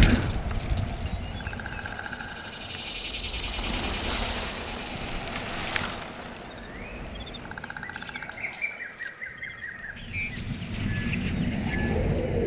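Animated forest film soundtrack played over studio monitor loudspeakers: birds chirping in short trills with a rushing, wind-like hiss in the first half.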